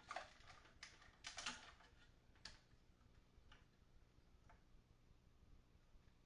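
Light clicks and scrapes of amp parts being handled as a component is worked back into a Fender Frontman 25R guitar amp's chassis, a cluster of them in the first couple of seconds, then a few faint ticks.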